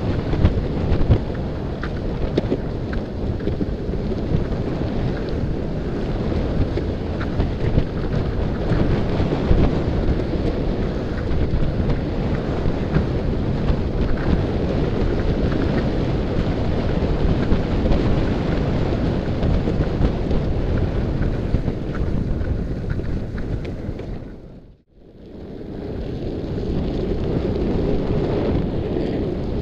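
Wind buffeting the microphone of a camera moving fast downhill, a steady low rumble mixed with the roll of longboard wheels on asphalt. The noise fades out briefly about five seconds before the end, then comes back.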